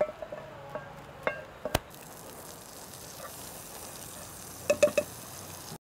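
Cooking utensils clinking and tapping: a wooden spatula scraping fried onions into a ceramic dish with several short ringing clinks, then a knife tapping three times in quick succession against a frying pan near the end, over a faint steady hiss.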